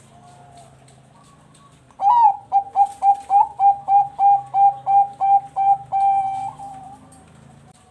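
Zebra dove (perkutut bangkok) singing: about two seconds in, a loud run of about a dozen quick staccato coos, each with an upward flick, closing with one longer drawn-out note that fades away.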